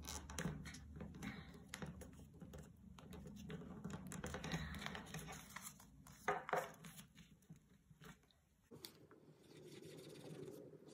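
Paper being handled and folded by hand: faint crinkling, rustling and small creasing clicks. About nine seconds in it changes abruptly to the faint scratch of a felt-tip pen drawing on the paper.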